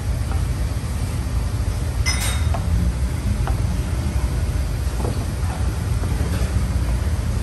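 A wooden spoon stirring noodles in a frying pan, giving a few light knocks and clinks against the pan, over a steady low rumble.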